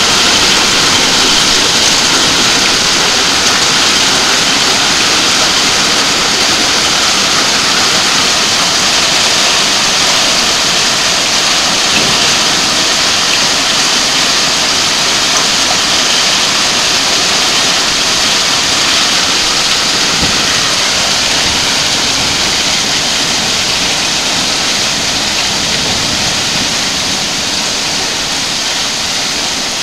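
A heavy downpour of hail and rain: a dense, loud, steady hiss that eases slightly toward the end.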